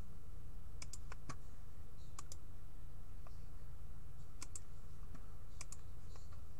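About a dozen light clicks at a computer, scattered and several in quick pairs, over a steady low hum.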